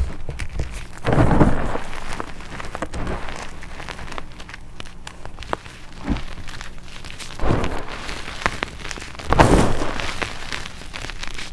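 Chalk coated in wet black paste being crushed by hand: grainy crunching and crackling with many small snaps, swelling into louder crunches about a second in and twice more near the end.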